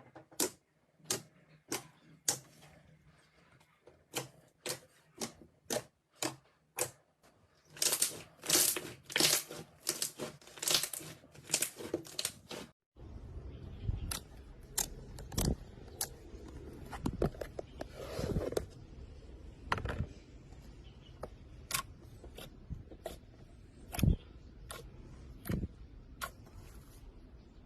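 Slime being squeezed and poked, giving a run of sharp clicks and pops that crowd together about eight to twelve seconds in. After a cut about halfway through, scattered pops sound over a steady low background noise.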